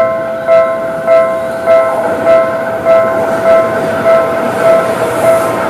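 Level-crossing warning bell ringing, an even ding about every 0.6 s. Under it, the rumble of an approaching Seibu 001 series Laview train grows louder from about two seconds in.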